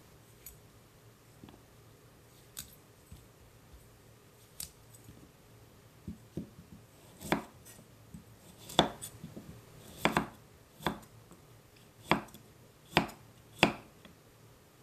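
Kitchen knife cutting broccoli on a wooden cutting board. A few faint taps at first, then about seven sharp chops as the blade goes through the stalk onto the board in the second half.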